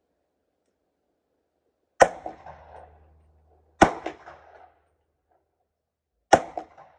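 Three rifle shots fired one at a time, about two seconds apart, each followed by a short echoing tail.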